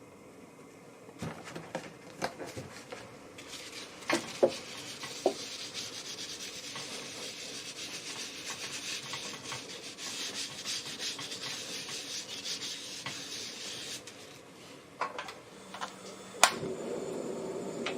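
Steady rubbing or scraping against a hard surface for about ten seconds, with scattered clicks and knocks before and after, and one sharp click near the end.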